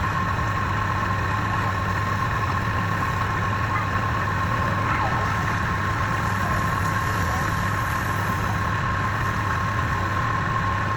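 A wood lathe running steadily: an even machine hum with a steady high-pitched whine.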